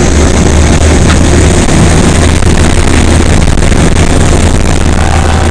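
Aircraft engines running at full power on the takeoff roll, a loud steady drone with wind rushing past the open jump door.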